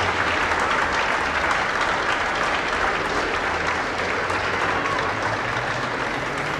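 Spectators clapping steadily, a dense patter of many hands that eases off a little towards the end.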